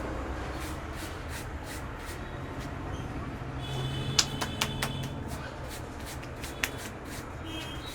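A barber's hands working rhythmically on a client's head during a vigorous head massage, a steady pat and rub about three to four strokes a second. Three sharp cracks come quickly just past four seconds in, and one more near seven seconds.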